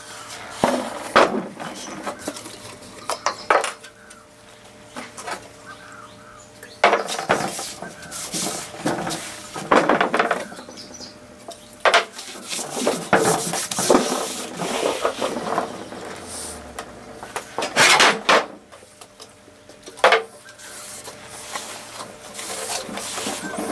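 A cloth rag rubbing over the rough bare cast-iron bed of a Hercus 9-inch lathe in irregular scraping strokes, with several sharp knocks and clinks as things are handled on the bed.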